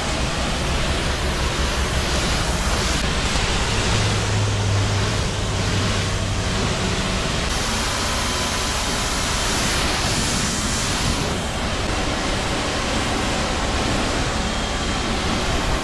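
Pressure washer spraying water hard against a boat hull: a loud, steady hiss of spray, with a low hum joining for a few seconds near the middle.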